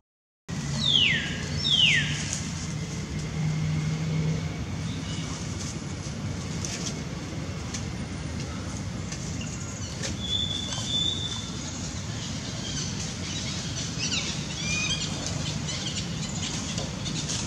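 Two loud, sharply falling high calls about a second apart, just after the start, then a faint held whistle-like tone and a few scattered chirps later on, over a steady low hum.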